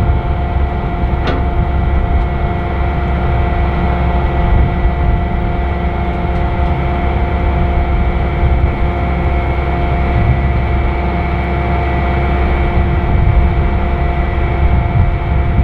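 Challenger 560C combine running steadily while harvesting corn: a constant low drone with several steady whining tones over it. There is a brief click about a second in.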